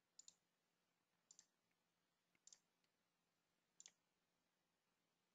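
Faint computer mouse clicks: four quick double-clicks, about a second apart, against near silence.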